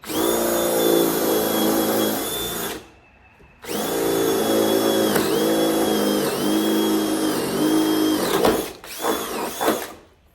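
Power drill with a 5/8-inch bit boring holes through barn purlins. The motor whines in two long runs, its pitch dipping several times as the bit loads up, then gives a short final burst near the end.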